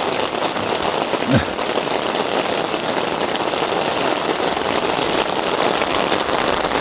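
Heavy rain pouring down steadily and pattering on the tent.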